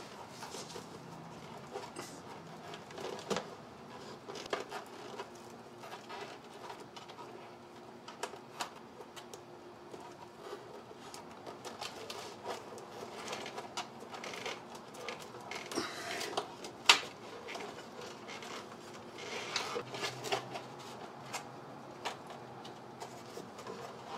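Scattered clicks, taps and rustles of a wiring harness in plastic split loom being pulled and pushed into a channel in the engine bay, over a faint steady hum, with one sharper click about two-thirds of the way through.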